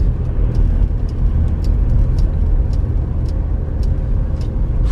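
A car driving, heard from inside the cabin: a steady, deep rumble of engine and road noise, with faint light clicks about twice a second.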